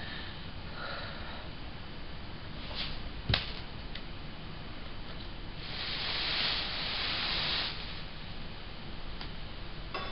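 Granulated sugar poured through a paper funnel into a plastic 2-liter bottle, a hissing rush of grains for about two seconds, starting some six seconds in. A sharp knock about three seconds in is the loudest sound.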